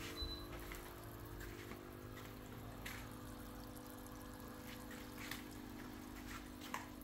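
Air stones bubbling and splashing at the surface of fish tanks, with a few scattered drips and ticks. Under it runs a steady hum.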